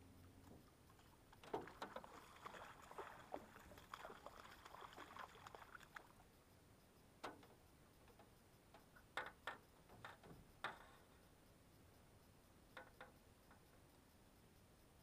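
A hooked bass splashing and thrashing at the water's surface beside the boat, a cluster of splashes over several seconds, followed by a few separate sharp knocks as it is brought in.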